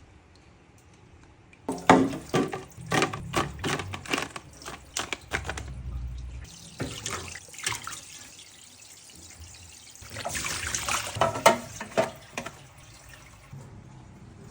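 Liquid pouring or running in two stretches, with a string of knocks and clinks of containers being handled.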